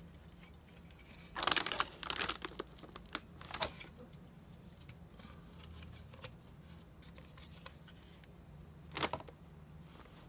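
Handling noise from a graphics card and its packaging being turned over in the hands: a few short bursts of rustling and crinkling, the loudest about one and a half to two and a half seconds in and another about nine seconds in, over a faint low hum.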